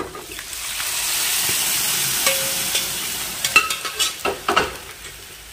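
Cooked whole green moong dal poured into a kadhai of hot oil, browned paneer and spices, setting off a loud sizzle that swells over the first couple of seconds and then dies down. Near the end a spoon knocks and scrapes in the pan a few times as it is stirred.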